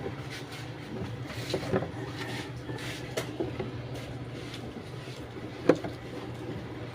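Scattered light clicks and knocks, with one sharp knock about six seconds in, over a steady low hum.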